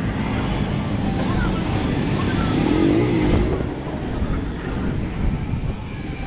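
Auto-rickshaw's small engine running as it drives along a street, with surrounding traffic noise. A short wavering tone rises above it about three seconds in.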